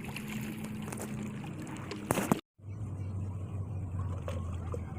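Steady outdoor noise with a brief loud rustle about two seconds in, cut off abruptly; after the cut, the low steady hum of a vehicle engine.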